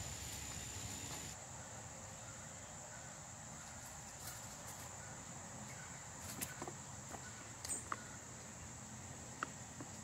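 Faint, steady high-pitched insect trill in a quiet outdoor background, with a few short soft clicks in the second half.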